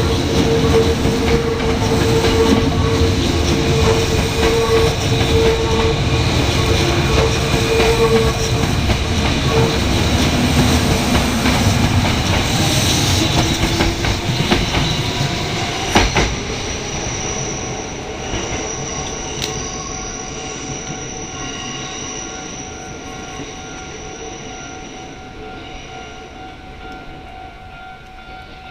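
Kintetsu Nara Line train passing over a level crossing, its wheels rumbling and clattering on the rails, with one sharp knock about 16 seconds in. After that the train noise fades steadily as it moves away, while thin steady tones, typical of the crossing's warning bell, carry on and die out near the end.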